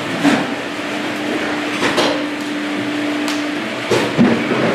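Irregular knocks, about five, over a steady hiss and a constant low hum that stops about three and a half seconds in.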